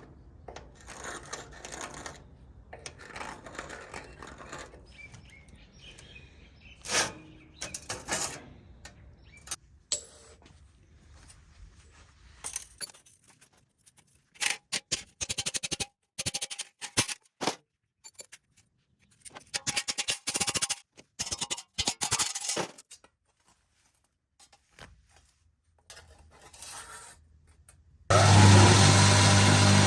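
Metal saw-blade work at a bench: scattered clinks and short runs of scraping strokes on metal. Near the end a loud machine starts abruptly and runs steadily with a low hum.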